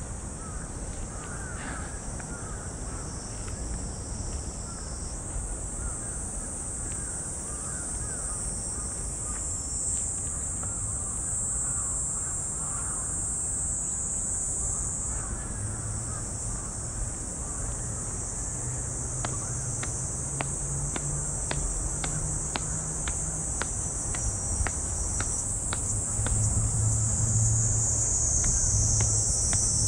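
Steady high-pitched drone of a cicada chorus in summer heat, swelling louder near the end, with crows cawing now and then.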